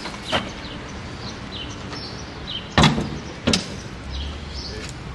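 Front trunk lid of a Porsche 911 being shut: two solid thumps about two-thirds of a second apart as the lid comes down and is pressed closed, the first the louder, after a lighter knock near the start.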